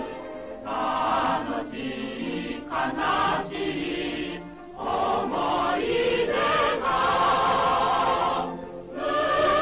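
Choir singing with music, in sung phrases broken by short pauses.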